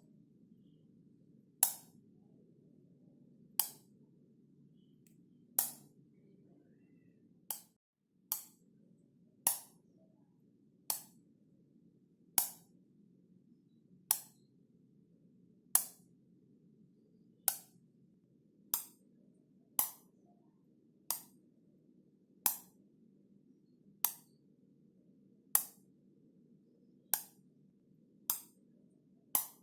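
Wall light switch being flipped on and off again and again, each flip a single sharp click, about one every one to two seconds, over a faint low background hiss.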